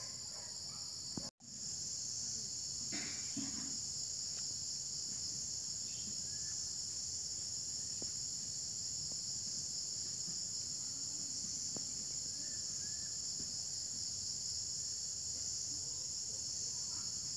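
Steady high-pitched chorus of insects, a continuous shrill hiss that cuts out for an instant about a second in and then carries on unchanged.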